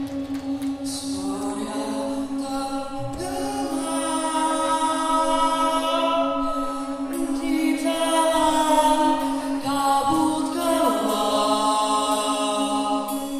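Live band music: a singer sings slow, long held phrases over one steady sustained note that runs underneath.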